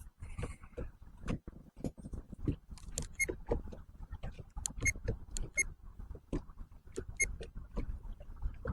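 Irregular knocks and light clicks from gear being handled, several with a brief metallic ping, over a low rumble.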